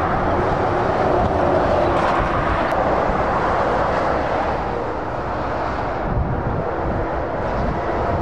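Steady motorway traffic noise: lorries and cars passing at speed, mostly tyre noise with engine drone beneath, and a heavier low rumble in the last couple of seconds as more lorries draw near.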